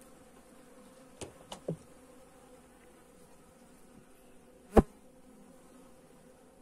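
Honey bees humming steadily in an open hive. A few short wooden clicks and knocks as a frame is worked loose and lifted out, with one much louder sharp knock near the end.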